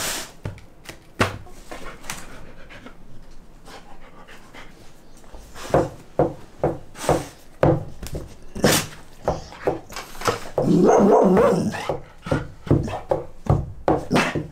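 Golden retriever giving a run of short barks and whimpers, with a longer, louder stretch about eleven seconds in.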